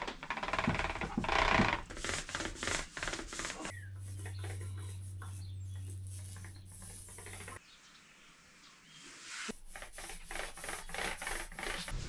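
Paint roller rubbing and rolling paint onto a surface in repeated strokes. A steady low hum runs for a few seconds in the middle, then cuts off suddenly before the rolling strokes resume.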